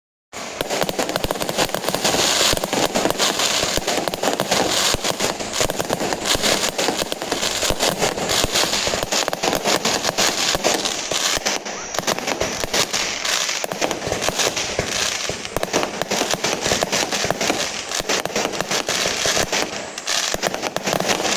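Fireworks going off in a dense, rapid crackle of many small pops and bangs with no break.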